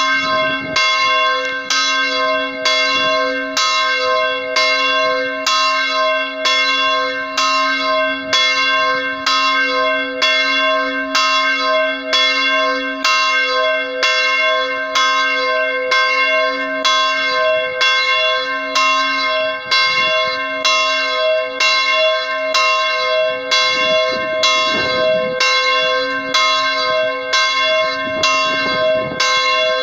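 Bronze church bell swinging in its belfry, its clapper striking at a steady, even pace, each stroke ringing on into the next: the bell rung to call to Mass.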